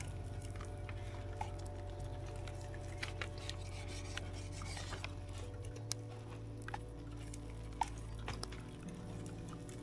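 Scattered light clicks and clinks of cookware and utensils being handled, over soft background music of sustained low tones that shift to a new chord just past halfway.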